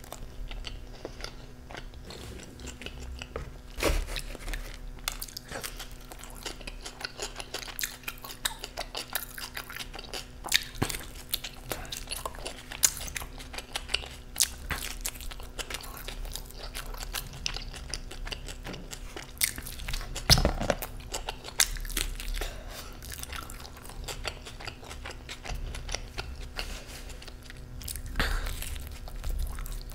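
A man chewing and biting into pizza close to the microphone: wet smacking mouth sounds throughout, with sharper bites every several seconds, the loudest about twenty seconds in.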